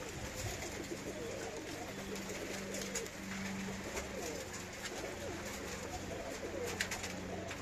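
Budapest highflyer pigeons cooing, several birds overlapping in wavering low calls. A short flurry of sharp clicks near the end, likely wing flaps.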